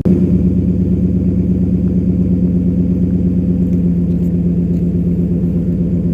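2012 Nissan Titan's 5.6-litre V8 running steadily through an MBRP cat-back exhaust, a low, even exhaust note with no revving.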